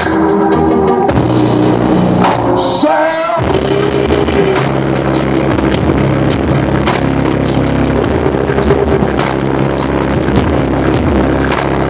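Loud music with heavy, steady bass playing through a car stereo, with a short break and a rising tone about three seconds in.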